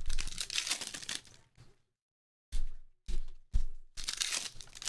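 Foil trading-card pack wrapper crinkling and tearing as a pack of basketball cards is ripped open by hand, in several short bursts, with a few sharp knocks from the pack and cards against the table around the middle.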